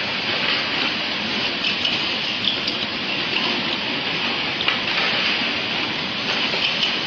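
Running rigid-box-making machinery on a production line: a steady dense hiss with scattered light clicks and ticks.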